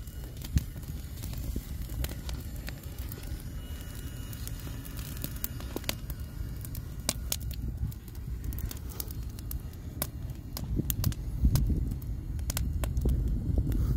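Wood fire crackling, with sharp irregular pops from burning split logs and coals, over a steady low rumble that swells near the end.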